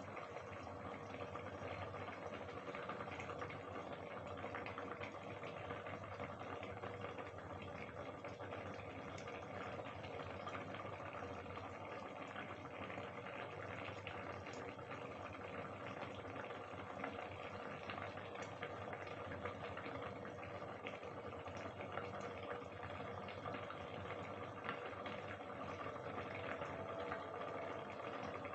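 Soyabean and potato curry simmering in a kadhai under an upturned steel plate used as a lid: a steady bubbling with faint small pops throughout.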